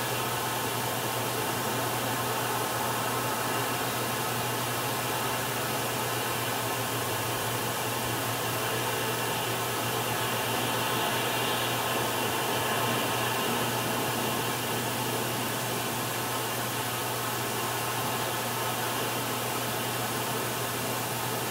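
Steady rushing noise of wind and surf picked up by an exposed clifftop nest camera's microphone, an even hiss with a steady low hum underneath.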